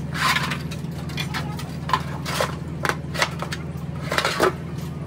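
Mercedes truck clutch pressure plate scraping and clanking against a metal oil basin as it is lifted and turned, in about seven short, sharp scrapes, over a steady low hum.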